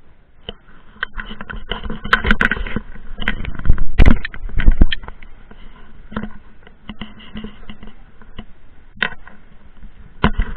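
Irregular clicks, knocks and scraping or rubbing noises, with the loudest knocks about four to five seconds in.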